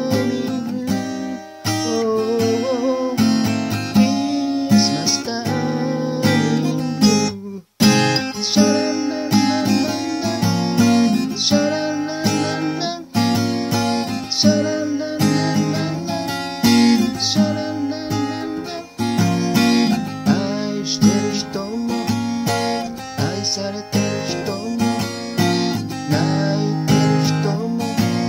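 Steel-string acoustic guitar strummed in a steady rhythm through chord changes, with one abrupt brief stop about eight seconds in.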